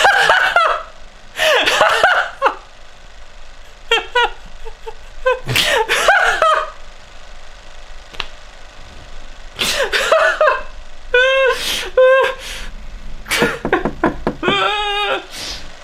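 A man laughing hard in separate bursts with breaths between them, including rapid repeated 'ha-ha-ha' runs about eleven and fourteen seconds in.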